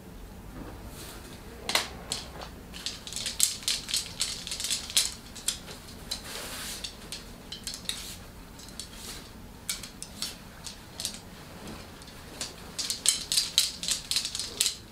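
Clattering of small hard objects being handled on a table: quick, sharp clicks in two bursts, one starting about two seconds in and a second near the end, with a few scattered clicks between.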